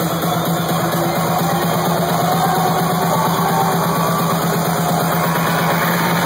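Loud house music from a live DJ set played over a club sound system, built on a held low synth note that pulses rapidly and steadily.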